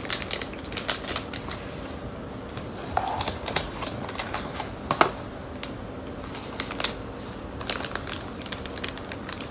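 Snack packaging being handled and opened: irregular crinkles and sharp clicks from a plastic wrapper and a cardboard box, with one louder snap about halfway through.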